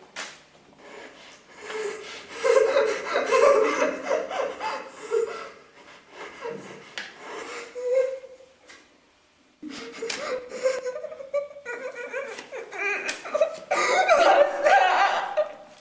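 Laughter in uneven bursts, with a short lull a little past halfway.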